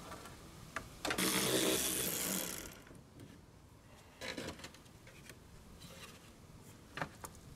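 Work on the plastic underbody covers beneath a car: a rasping, rattling burst of about a second and a half, then a few scattered clicks and knocks as the panels and their fasteners are handled.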